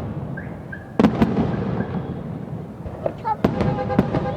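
Loud fireworks going off: a pair of sharp bangs about a second in and two more near the end, each trailing off in a rumbling echo.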